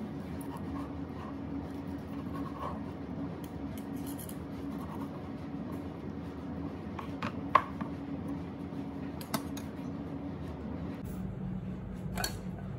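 Knife cutting grilled chicken on a plastic cutting board: soft scraping and a few sharp taps of the blade on the board, the loudest about seven and a half seconds in, over a steady low hum. A clink near the end.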